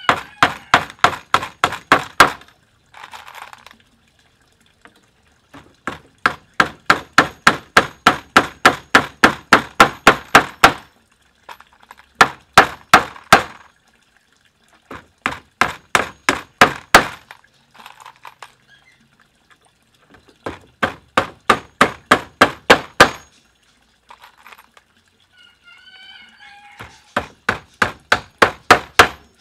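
Hammer driving nails into pallet-wood deck boards: six runs of quick, even strikes, about five a second, each run a few seconds long with short pauses between. The nails go into pre-drilled holes.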